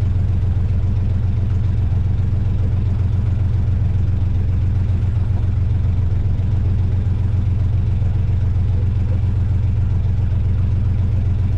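Small fishing boat's engine running steadily with a constant low hum, heard from inside the boat's cabin.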